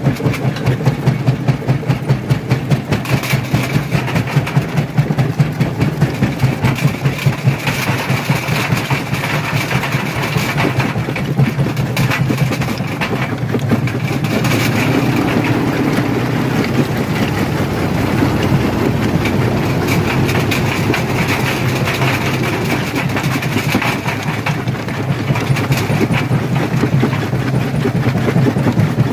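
Rock crusher running and crushing stone: a steady heavy machine hum with many sharp cracks and knocks of breaking rock. For the first several seconds the sound pulses about three times a second, then it evens out.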